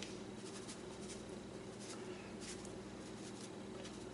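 Faint rustling as dry au jus gravy mix is shaken out of its packet onto chicken, a few soft rustles over a steady low hum.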